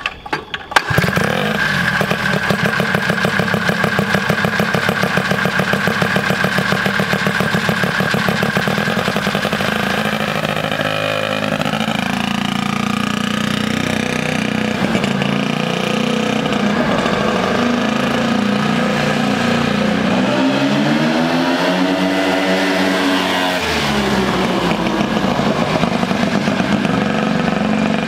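Turbocharged rotary engine of a quad starting about a second in and running, then revving up and down as the quad is ridden.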